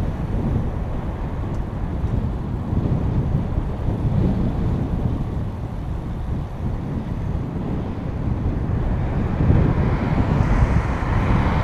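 Wind buffeting the microphone of a camera on a moving bicycle: a steady low rumble and rush. A broader rushing noise swells near the end.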